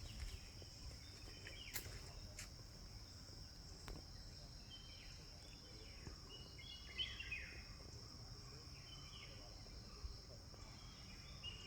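Faint outdoor ambience: a steady high-pitched insect drone, with short bird chirps scattered through, mostly around the middle and near the end. A few faint clicks in the first few seconds.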